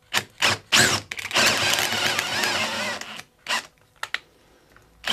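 Cordless drill with a 5/8-inch bit boring forward into a chair mortise, a few short trigger pulses and then a run of about two seconds, the bit crunching through old, hardened hide glue as it clears the joint. A brief last burst follows, then a few light clicks.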